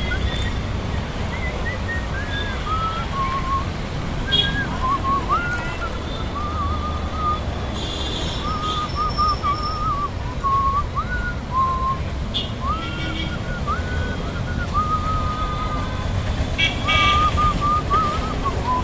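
A tune whistled on a single clear line, stepping and sliding between notes, over a steady rumble of road traffic. A few short high beeps cut in, the clearest about 8 and 17 seconds in.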